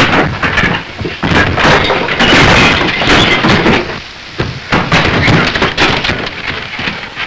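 A run of loud crashes and bangs, things being knocked over and breaking, over storm rain, heaviest about two to four seconds in. The sound is from a 1931 film soundtrack.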